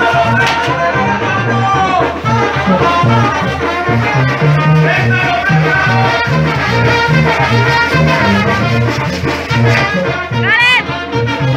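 Loud Latin dance music with brass over a steady, repeating bass line.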